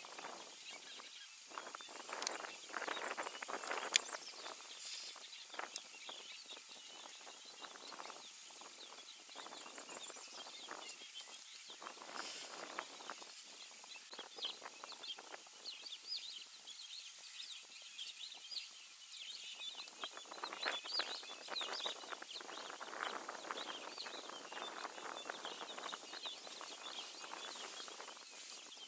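Outdoor bush ambience: birds chirping in short calls over a steady high-pitched whine, with irregular crackling rustles that come and go in clusters.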